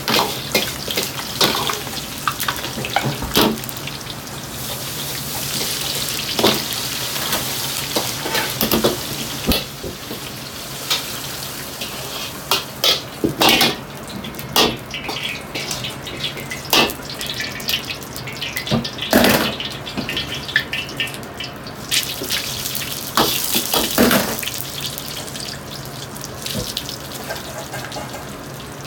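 Food deep-frying in oil in an iron wok, a steady bubbling hiss, broken by sharp clinks and knocks of a metal ladle against the wok. The frying hiss thins out about halfway through and comes back briefly later on.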